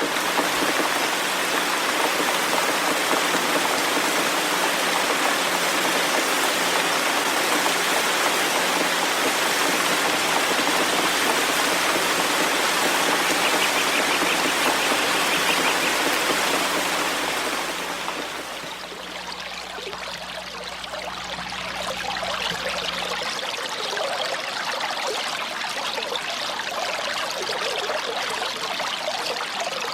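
Fountain spray, a dense steady hiss, fades a little past halfway into running water trickling and splashing. A faint low hum sits under the spray and stops soon after the change.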